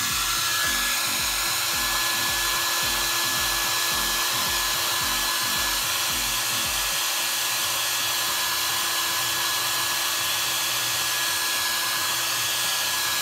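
Handheld hair dryer blowing steadily on high, a rush of air with a constant high whine from its motor.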